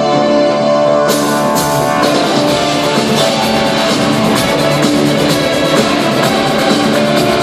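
A live rock band and orchestra playing. Sustained keyboard chords give way about a second in to cymbal crashes, and the full band then comes in with drums and guitar on a steady driving beat.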